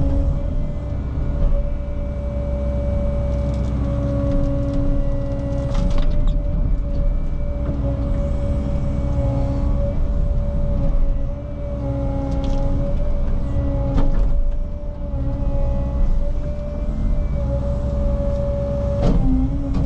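Cat 306 mini excavator's diesel engine running under load with a steady hydraulic whine, its pitch wavering as the machine works. A few sharp knocks or cracks stand out, about a third of the way in, around two-thirds of the way in and near the end.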